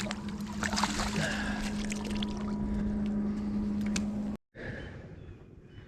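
A boat's motor running with a steady hum, with scattered knocks and clatter on top. The sound cuts off suddenly a little over four seconds in, and what follows is much quieter.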